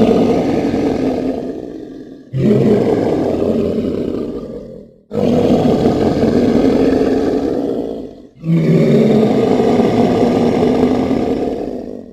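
Sound-designed dinosaur roar offered as a possible voice for the Kasai rex, a deep, throaty call heard four times; each starts loud and fades away over two to three seconds before the next begins.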